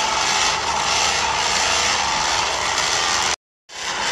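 Radio-controlled scale 4x4 truck running, a steady mechanical whirr from its drivetrain. The sound cuts out for a moment about three and a half seconds in, then resumes.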